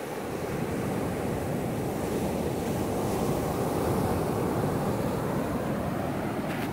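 Ocean surf breaking and washing up a sandy beach in a steady rush, swelling slightly a few seconds in.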